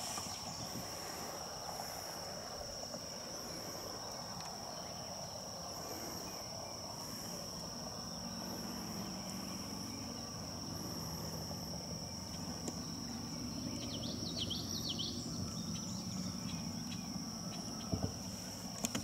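Insects droning at one steady high pitch, with faint high chirps now and then.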